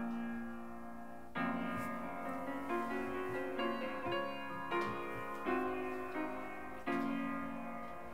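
Background piano music: notes and chords struck about every second and left to ring.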